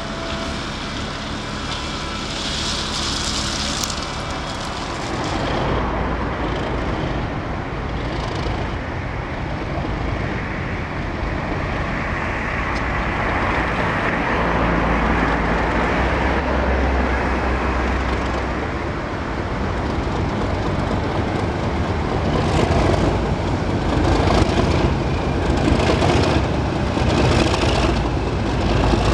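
Class 37 diesel locomotive running as it approaches and passes hauling loaded ballast wagons, its low engine note building to a peak about halfway through. Near the end the wagon wheels click over the rail joints.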